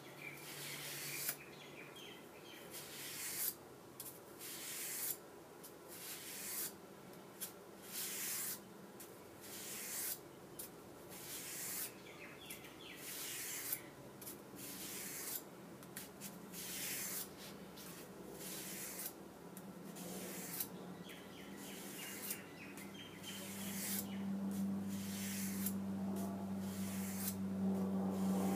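Steel blade of an Opinel folding knife being stroked along 1200-grit sandpaper to sharpen it: a dry rasping scrape about once a second. A low steady hum comes in over the last few seconds.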